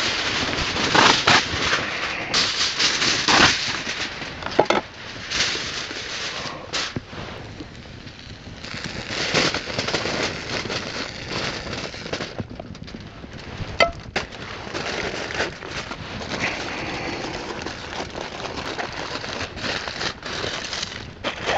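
Small wood campfire crackling with sharp pops here and there, over a steady sizzle of potatoes and onions frying in a skillet.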